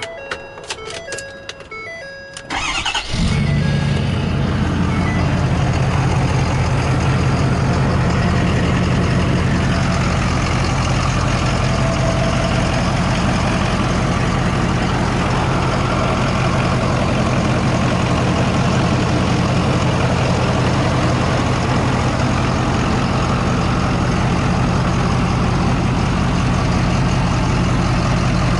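Ford F-250 Super Duty's 6.7-litre Power Stroke V8 turbo-diesel, with an aftermarket 5-inch exhaust, starting about three seconds in after a few short beeps, then idling steadily.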